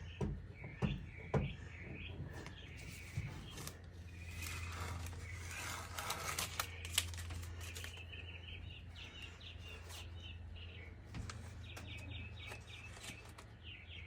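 Small birds chirping in repeated short calls over a low steady hum. There are a few sharp clicks in the first second and a half, and a rustling scrape in the middle.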